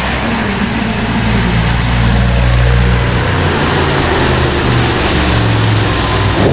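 Audi RS6 engine running at low, fairly steady revs: a deep rumble that shifts slightly in pitch, with a steady hiss over it.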